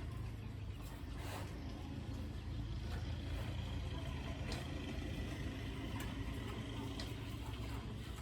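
A steady low hum of an engine running.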